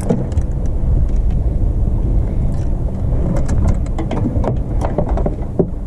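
A car's engine running steadily at idle, a low rumble, with scattered small clicks and knocks over it.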